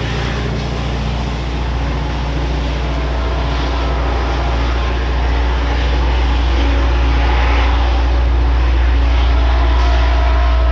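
Caltrain commuter train running, a steady deep rumble with a low hum that grows a little louder about halfway through.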